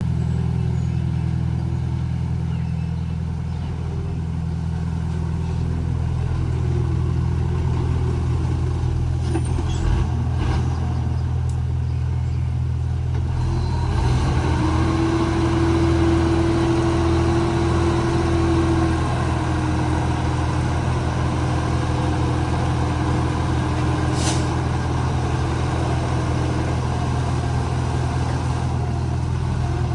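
Komatsu D31P bulldozer's diesel engine running steadily, with a deep constant drone; about halfway through a steady higher whine joins in and the sound grows fuller.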